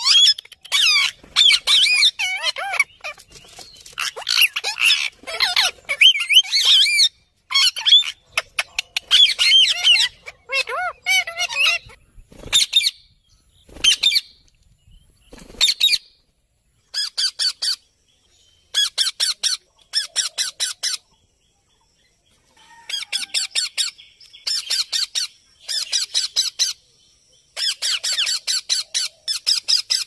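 Ring-necked parakeets squawking and screeching in quick, sweeping calls. After a short lull midway, the calls give way to repeated bursts of fast, harsh chattering, each about a second long, with pauses between them.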